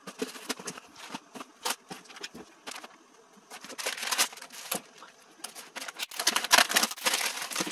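Clear plastic film and plastic food containers crinkling and crackling as hands handle and peel the wrap, in irregular bursts that are loudest about four seconds in and again near the end.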